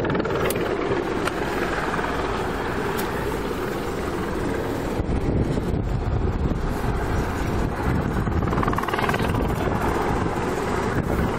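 Steady rumble of a car driving slowly along a road, with wind on the microphone at the open window.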